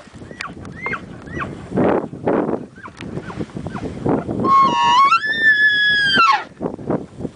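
An elk bugle: one long whistling call that steps up in pitch about four and a half seconds in, holds high, then drops away at the end, with a few short squeaky calls in the first second and a half. Rustling noise comes and goes throughout.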